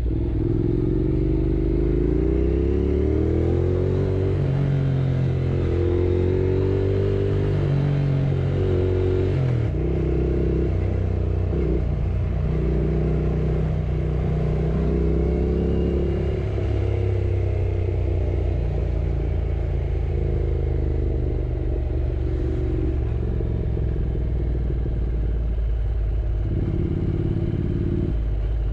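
Yamaha R6 sport bike's inline-four engine running under way. Its pitch climbs over the first few seconds, then drops and climbs again several times as it changes gear and speed, over a steady low rumble.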